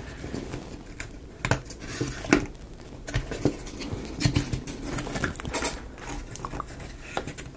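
Light, irregular clicking and tapping of small wooden model-kit pieces being handled and fitted together.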